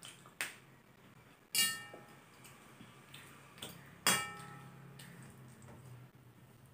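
A stainless steel plate clinking and ringing as fingers gather and mix rice on it, with two louder ringing clinks, one about a second and a half in and one about four seconds in, and lighter clicks between.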